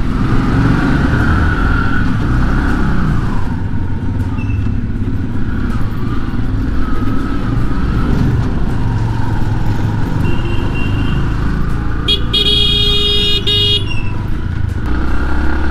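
Bajaj Platina motorcycle's single-cylinder four-stroke engine running steadily at low speed, heard from the rider's seat. A vehicle horn sounds for about two seconds near the end.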